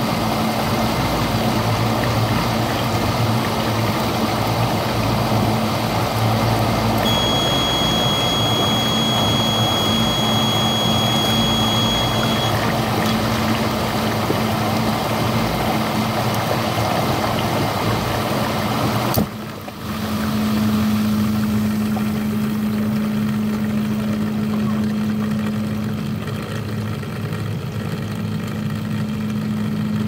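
Dishwasher motor running with a steady hum under a swishing water noise; about two-thirds through the water noise cuts off suddenly and the motor hum carries on alone. A thin high whine sounds for a few seconds in the first half.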